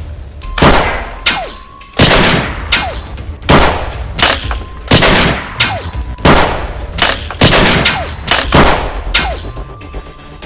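Gunshot sound effects, a series of single loud shots about every two-thirds of a second, over music.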